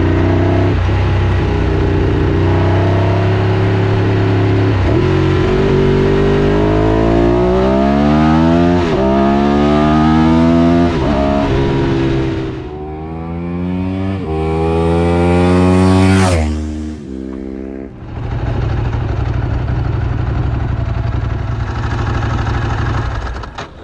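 Ducati 748 SP's L-twin engine accelerating through the gears, its pitch climbing and dropping back at each upshift. After a last climb about two-thirds of the way through it cuts off sharply, then runs steadily near the end.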